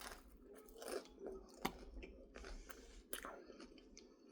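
A person chewing and crunching kettle-cooked potato chips, with irregular sharp crunches.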